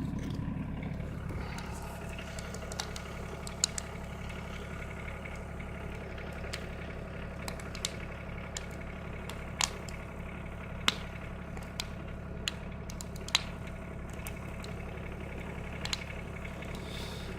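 Tractor engine idling steadily. Scattered sharp pops and crackles from a wood fire come through over it at irregular moments.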